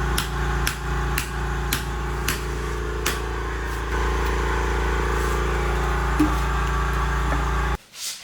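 Sharp metal knocks, about two a second, of a hammer striking a socket on a lug nut, over a steady mechanical hum; the sound cuts off abruptly near the end.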